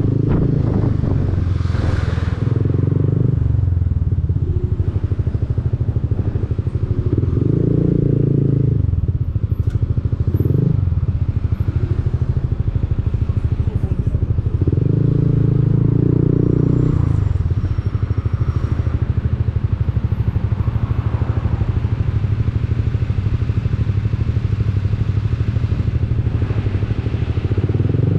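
Honda Forza 300 scooter's single-cylinder engine running through an Arrow aftermarket exhaust. It holds a steady low note and swells louder with throttle several times.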